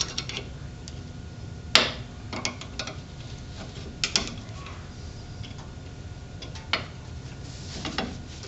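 Scattered metallic clicks and clinks as a screwdriver works on drum brake parts, with the sharpest click about two seconds in and a few more near the middle and end.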